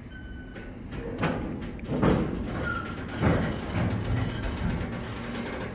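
A few heavy thumps and clunks, the loudest about two and three seconds in, over a low rumble.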